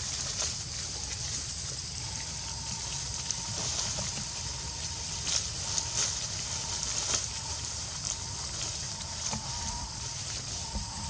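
Outdoor natural ambience: a steady high hiss over a low rumble, with a few short light clicks and rustles scattered through. A faint steady high tone joins about two seconds in.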